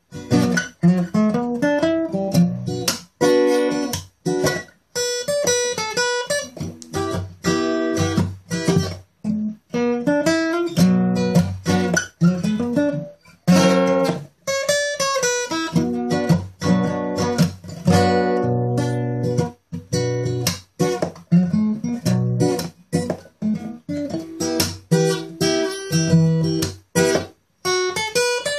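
Acoustic guitar played solo: strummed chords mixed with picked single-note lines, in phrases broken by brief stops.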